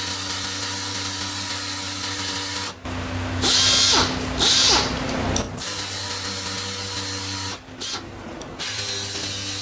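Small electric power tool running steadily, with two loud abrasive scrapes about halfway through as it sands the paint off the car body panel to show up small dents.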